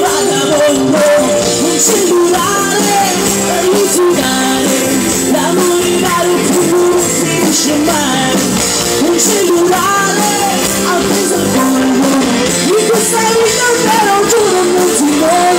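A woman singing lead into a microphone with a live band, electric guitar among the instruments, amplified through the stage sound system.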